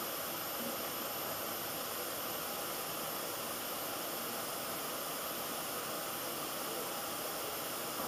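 Steady hiss of background noise with nothing else in it, even and unchanging throughout.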